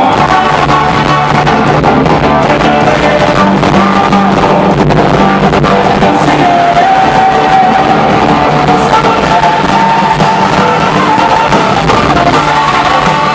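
A rock band playing live and loud in a large hall, with electric guitars, drums and a singer, heard from the audience.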